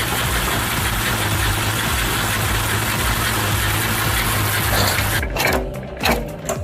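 Engine running steadily, a constant low hum under a wide hiss. About five seconds in it cuts off abruptly and a choppier sound of irregular knocks takes over.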